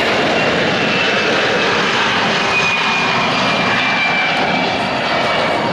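Boeing C-17 Globemaster III's four turbofan engines at takeoff power as the transport climbs away: loud, steady jet noise with a faint whine that slowly falls in pitch.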